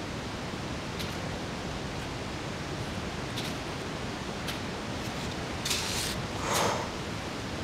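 Steady hiss with several short, crisp crunches of a climber's steps in snow, the longest and loudest a little before six seconds in.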